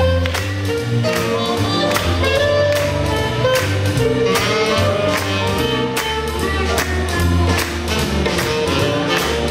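Live swing jazz band playing an up-tempo number: drums keep a steady beat under a double bass line, with saxophone and trumpet playing over the top.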